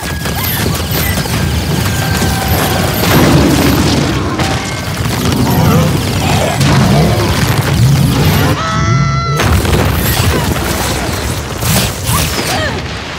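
Sci-fi action-film sound effects: a dense run of booms and crashes with quick high zapping sounds, a sci-fi fight.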